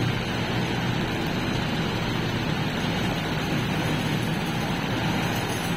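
Freshly overhauled Honda ADV160 scooter's single-cylinder engine idling steadily and smoothly.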